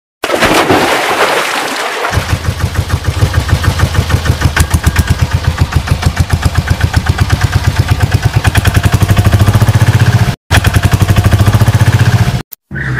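A small engine putters in a fast, even rhythm, picking up a little toward the end, like an auto-rickshaw's engine. It starts after about two seconds of rushing noise and is cut off abruptly twice near the end.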